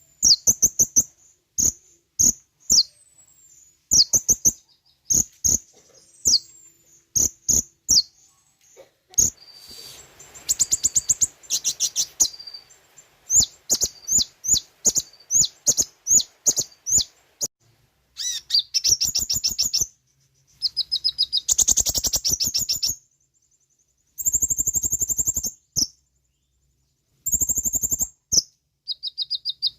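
Kolibri ninja (konin) sunbird singing: a rapid string of sharp, high chirps broken by several fast, buzzy trills of a second or two each, with short pauses between phrases.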